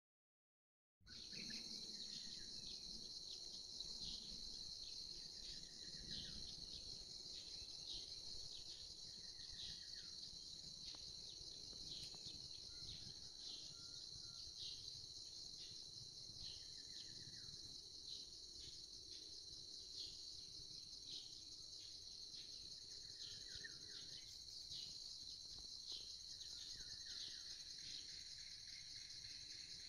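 Faint, steady trilling of insects in a dawn chorus, with brief bird calls every few seconds.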